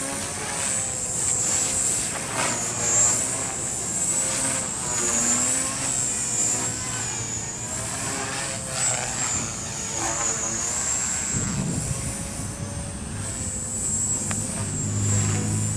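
Small electric RC helicopter in flight, its motor and gear whine wavering up and down in pitch as the throttle and rotor speed shift through manoeuvres.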